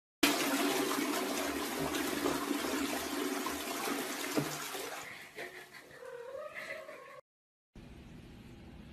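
Toilet flushing, a loud rush of water that fades out after about five seconds, followed by a cat giving one wavering meow as the flush dies down.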